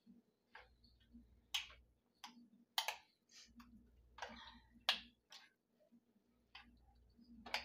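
Metal fork clicking and tapping against a ceramic casserole dish while stirring cooked squash, about a dozen irregular light clinks.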